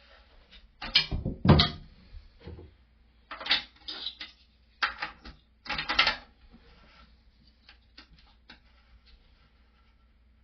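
Irregular knocks, clicks and scrapes of toilet-tank parts being handled and fitted by hand. The loudest knocks come a second or two in, with more clusters a few seconds later and a few faint clicks near the end.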